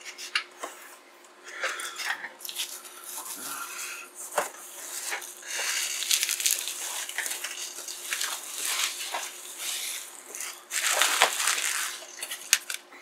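Bubble wrap crinkling and rustling against a cardboard box as a wrapped computer is handled and pulled free, with a louder burst of crinkling about eleven seconds in. A faint steady hum runs underneath.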